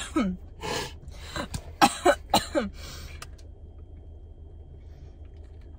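A person coughing in several short bursts over the first three seconds, then only a steady low hum.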